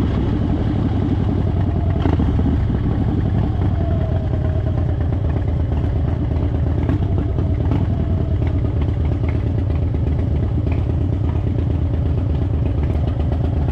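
Harley-Davidson Dyna Fat Bob's V-twin engine running steadily as the bike is ridden.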